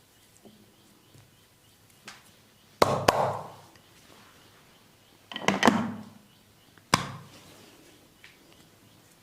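Massage slaps: an open hand striking oiled skin in sharp smacks, a light one about two seconds in, a quick pair, a cluster of three near the middle and a last one about seven seconds in.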